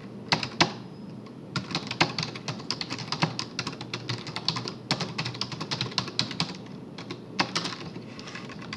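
Typing on a computer keyboard: a fast run of key clicks, with two louder taps in the first second and a short pause about seven seconds in.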